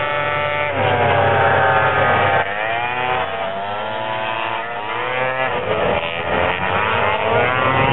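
Several vintage two-stroke snowmobile engines revving as the sleds race past, their overlapping engine notes rising and falling in pitch.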